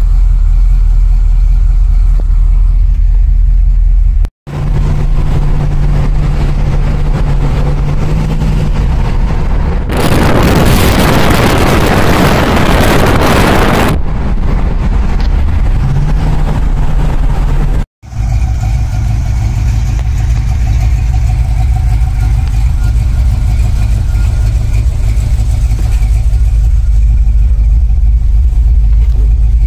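Motor vehicle driving, heard loud from inside the cabin: a heavy low engine and road rumble with a steady hum that rises in pitch partway through, and a few seconds of loud rushing noise in the middle. The sound cuts out abruptly twice.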